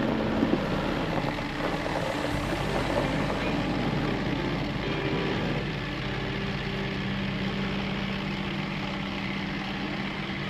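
A vehicle engine running with a steady drone, under background music.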